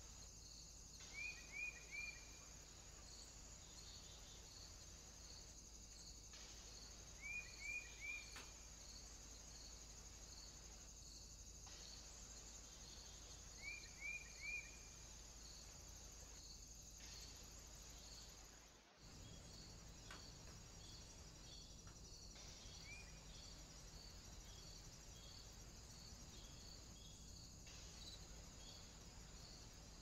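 Insects trilling steadily with a regular high pulsing note. A small bird calls three times in quick triplets of short, clear notes, then gives one more single note later.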